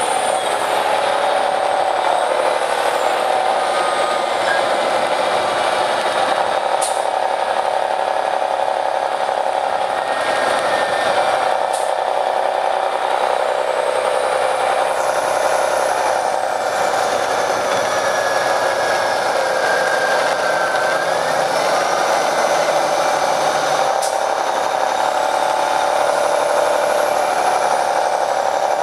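Detroit Diesel Series 60 engine of an MCI D4500 coach bus running steadily under way, heard from inside the bus. A high whine rises and falls several times over the engine, and a few faint clicks come through. The recording has been processed to strip out passengers' talk, which gives it an odd, filtered sound.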